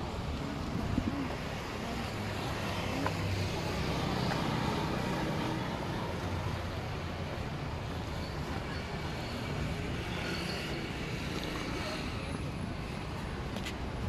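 Street traffic: motor vehicle engines running and passing on the road, one a little louder about four to five seconds in.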